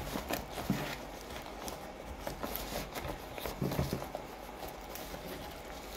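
Fresh green leaf rustling and crinkling as it is folded tightly around a portion of cooked rice, with light taps and knocks of hands and the packet on a wooden table.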